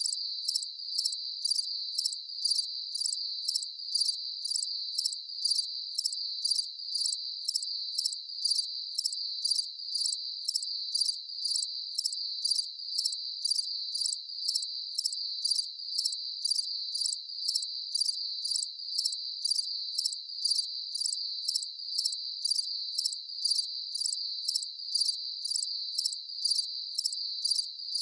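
Crickets chirping in a steady, high-pitched trill that pulses evenly about twice a second.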